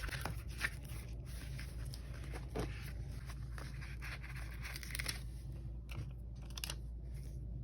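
Paper sticker sheets being handled and flipped through, with irregular crinkling, rustling and small taps over a steady low hum.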